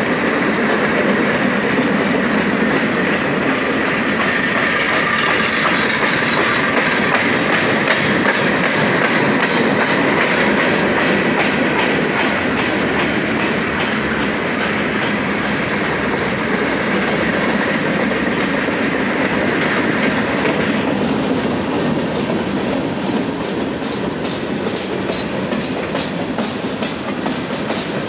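Norfolk Southern mixed freight train of gondolas, hoppers and tank cars rolling past, its steel wheels rumbling steadily and clicking over the rail joints. A steady high ring over the rumble drops away about three-quarters of the way through, leaving the clicks more distinct.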